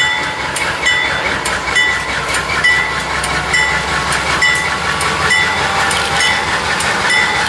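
Union Pacific diesel locomotive approaching with a train of freight cars, its engine rumbling and growing louder about halfway through. A short ringing ding repeats about once a second throughout.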